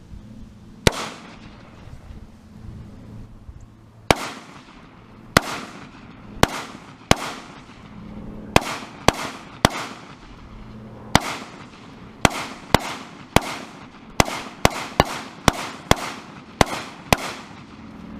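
Semi-automatic gunfire at a range: about twenty single shots, irregularly spaced at first and then coming faster, each a sharp crack with a short ringing tail, as a magazine is emptied.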